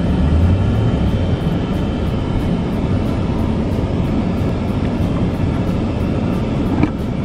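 Car engine and road noise heard inside the cabin, a steady low rumble as the car moves slowly up a driveway, with a brief click near the end.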